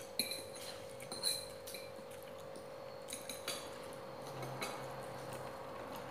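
Several light clinks and taps of tableware on plates, mostly in the first couple of seconds and twice more about three seconds in, over a faint steady hum.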